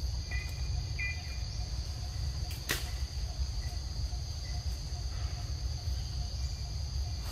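Steady high-pitched drone of forest insects, over a low rumble. A few faint short chirps sound in the first second or so, and a single sharp click comes about two and a half seconds in.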